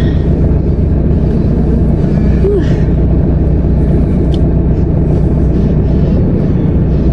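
Steady low rumble of a car's engine idling, heard from inside the cabin.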